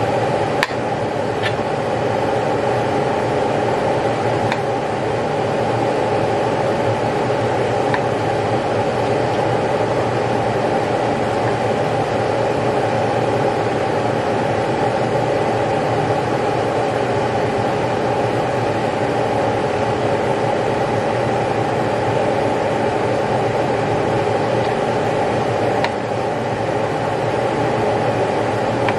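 A steady machine hum, like a running fan, is the loudest sound. A few light clicks of a chef's knife on a plastic cutting board sound through it as raw chicken breast is sliced.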